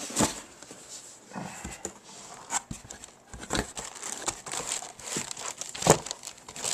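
Cardboard box and paper packaging being handled as items are taken out: rustling and crinkling with scattered knocks, the sharpest just after the start and again near the end.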